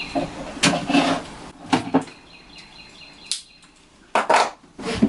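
Several sharp knocks and rustles from a corrugated plastic vent hose being handled and tools being picked up off the floor. A bird chirps a quick run of repeated high notes in the background about halfway through.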